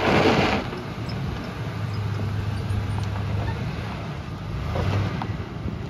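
Ford F-150 pickup rolling slowly past at low engine speed, a steady low hum, with tyres crunching over loose gravel. A gust of wind hits the microphone at the start and is the loudest sound.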